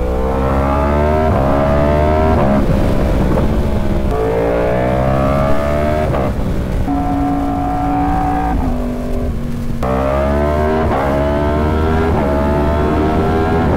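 Yamaha R1's crossplane inline-four engine accelerating hard through the gears: the revs climb in repeated pulls, each cut by a quick drop in pitch as it shifts up. Around the middle it holds a steady note for a couple of seconds, dips, then pulls up again.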